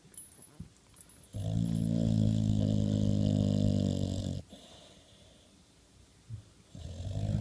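Sleeping boxer dog snoring: one long, steady pitched snore of about three seconds, a quiet stretch, then the next snore starting near the end.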